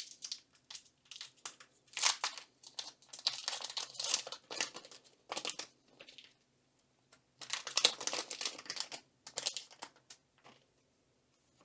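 Foil wrapper of a Pokémon card booster pack being torn open and crinkled, in irregular bursts of crackling that come in two main spells, the second around eight seconds in, then die away.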